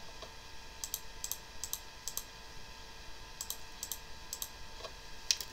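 About a dozen light clicks of a computer keyboard, scattered and some in quick pairs, over a steady hum of several tones from the computer itself, the noise its owner calls obnoxious and means to have fixed.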